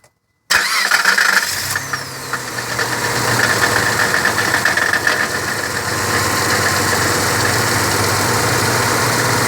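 Car engine started: it catches suddenly about half a second in, runs loud and fast at first, then settles to a steady idle. A knocking from the lower engine is heard, most evident during the start-up.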